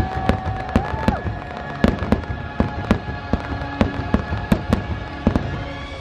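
Aerial fireworks bursting in rapid succession, many sharp bangs and cracks several a second, with the show's music playing underneath.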